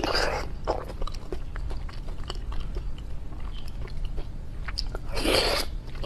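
Close-miked mouth sounds of someone eating braised pork belly: biting and chewing, with many small wet clicks and a louder noisy rush about five seconds in.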